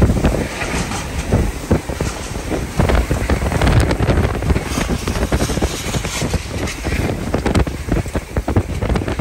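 Hurricane-force wind blowing in violent, irregular gusts with wind-driven rain, buffeting the microphone with low thumps.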